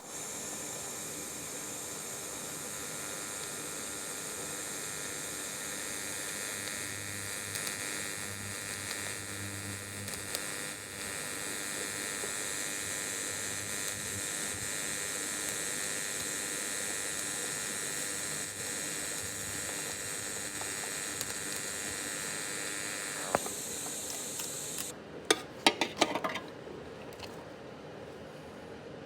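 Welding arc hissing steadily for over twenty seconds, then cutting off suddenly, followed by a few sharp clicks.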